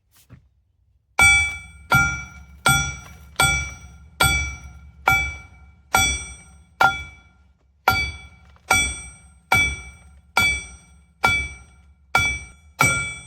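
Hammer blows on steel, about fifteen strikes a little more than one a second, each ringing on. The hammering is driving the excavator's final drive travel motor loose from the track frame.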